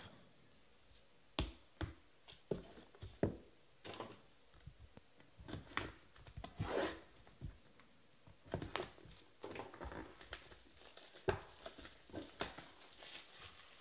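Hands handling trading cards and shrink-wrapped card boxes: scattered quiet taps and clicks with short bursts of plastic crinkling and tearing as the wrap comes off a box.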